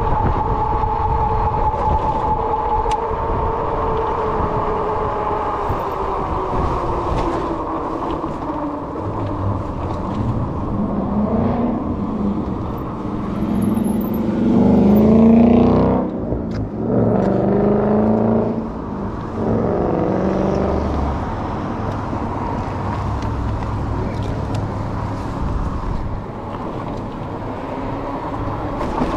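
Ride on a Rad Rover 6+ electric fat-tire bike along a street: steady wind and tyre noise, with a whine that slides down in pitch over the first several seconds as the bike slows. Car traffic passes, loudest about halfway through.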